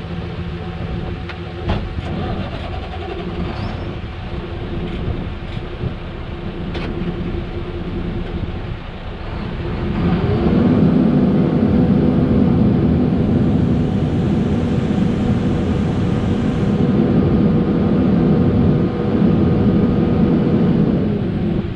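Engine of a vehicle hauling a load of about 45,000 pounds of corn, running steadily. About ten seconds in, it rises a little in pitch and gets louder as it pulls harder, then holds until it eases off near the end.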